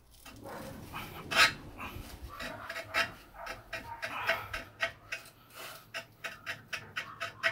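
Rusty shaft being worked loose and pulled out of the Hammer C3 31 jointer's infeed table: metal scraping and squeaking in short, irregular bursts, the loudest about one and a half seconds in.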